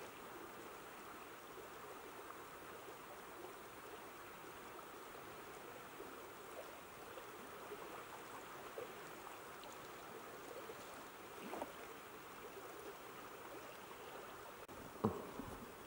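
Faint, steady rush of a wide river flowing past the bank. There is one short knock about a second before the end.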